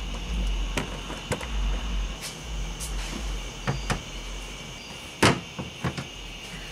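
Iron weight plates and dumbbells clanking as they are lifted off a car hood's sheet-metal underside and set down, a run of separate knocks with the loudest about five seconds in.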